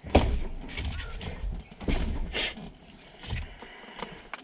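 A man yanking hard on a steering wheel still stuck on its splined column shaft: several short bursts of clunking and rattling from the wheel and column, with strained grunts of effort. The wheel does not come free.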